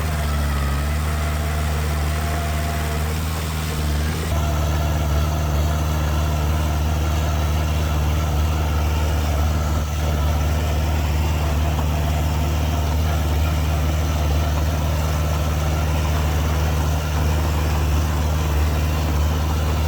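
Heavy earthmoving machinery's diesel engine running steadily at a low, even pitch, getting a little louder about four seconds in.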